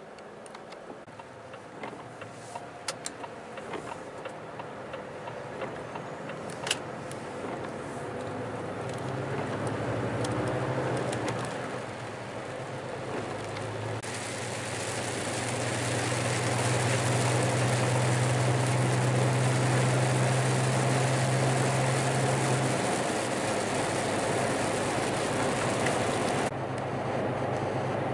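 Lorry's diesel engine and tyre noise heard from inside the cab as the truck accelerates onto a motorway, building up over about ten seconds and then settling into a steady drone of engine and road noise. A few light clicks sound in the first seconds.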